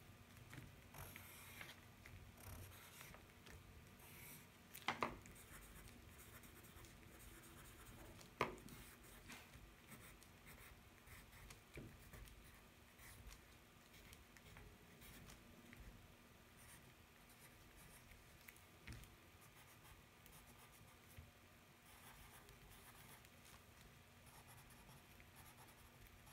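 Faint scratching of a pen nib on paper as small faces are doodled, with two sharp clicks about five and eight seconds in.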